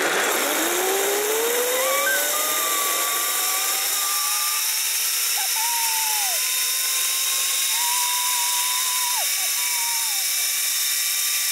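A zip line trolley's pulleys running along the steel cable, making a whine that rises steadily in pitch over the first several seconds as the rider picks up speed, then holds. A steady rushing hiss of wind lies under it.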